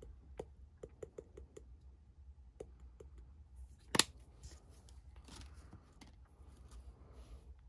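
Small plastic clicks and taps of a glitter shaker jar, about four a second, as fine glitter is sprinkled onto epoxy, then one sharp click about four seconds in and faint rustling of handling.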